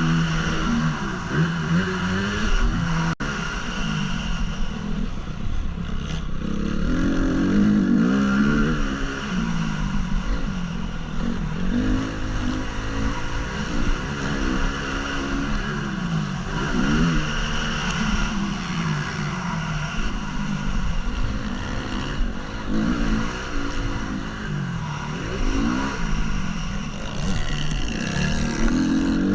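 A 2014 Honda CRF250 motocross bike's single-cylinder four-stroke engine, heard from the rider's helmet, revving up and falling back over and over as the rider accelerates, shifts and rolls off around the track.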